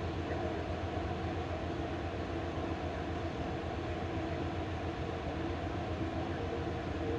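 Amtrak Superliner passenger train standing at the platform: a steady mechanical drone with a low hum from its idling equipment.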